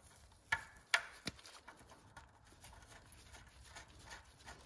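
Three sharp clicks in the first second and a half as the oil feed line's banjo fitting, bolt and sealing washers are put back onto the BMW E46 VANOS unit, then faint handling ticks as the bolt is fitted by hand.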